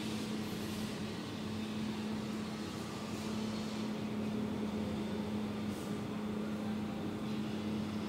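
Heavy diesel engines of a truck-mounted concrete boom pump and ready-mix trucks running steadily during a slab pour, a constant hum.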